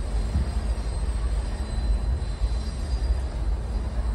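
Empty intermodal freight cars rolling past on the tracks: a steady low rumble.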